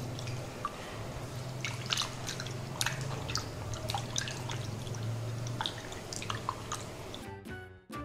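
Peeled raw prawns being rinsed by hand in water: irregular small splashes and drips over a low steady hum. Music comes in near the end.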